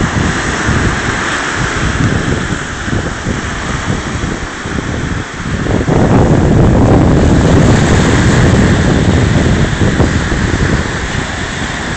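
Surf of a slightly rough sea breaking and washing up a sandy beach, mixed with wind buffeting the microphone. It grows louder about halfway through and eases near the end.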